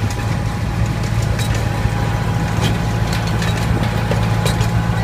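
Miniature ride-on train's engine running steadily as the train moves along the track. It is a low, even hum, with a few scattered sharp clicks over it.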